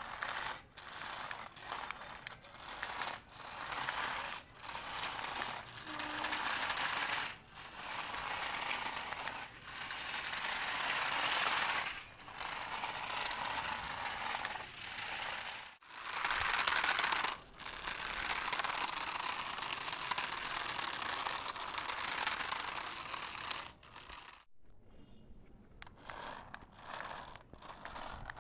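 Small toy RC car's electric motor and plastic gearbox whirring and rattling in bursts of a second to a few seconds, with short pauses between. It goes much quieter near the end.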